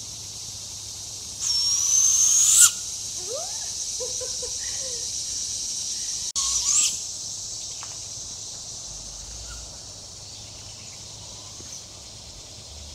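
Owls calling: a rising-then-falling wail followed by a few short hoots, under a steady high drone. Twice a louder high rising whistle sounds over it, the loudest at about a second and a half in.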